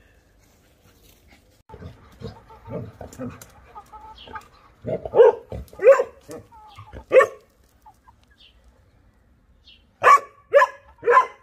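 A large dog barking in play at a hen, with quieter low vocalising about two seconds in, a few loud barks around the middle, and three quick barks near the end.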